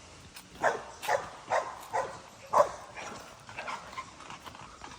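A dog barking, five sharp barks about two a second, the last a little apart, then only faint yard sounds.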